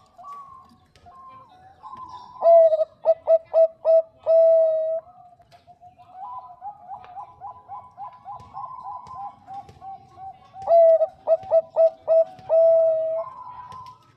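Zebra dove of the Thai-bred perkutut bangkok type singing its cooing song. Twice, a run of soft fluttering coos leads into a loud phrase of about half a dozen short staccato coos that ends in a longer held coo.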